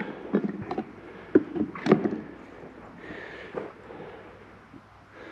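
A few scattered knocks and clatters from handling sheep in a race of metal hurdles, the sharpest about two seconds in, then fading to quiet shuffling.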